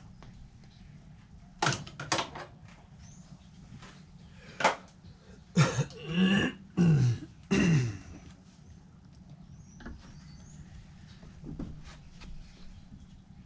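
A few sharp clicks, then an animal calling three times in a row, each call about half a second long and falling in pitch.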